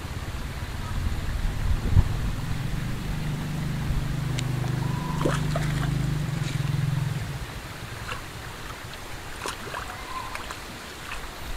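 Water running steadily over a weir, with a low engine drone in the background from about three to seven seconds in, then fading.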